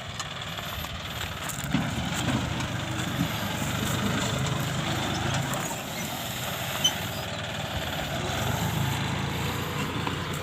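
John Deere 5050D tractor's diesel engine running steadily while plowing.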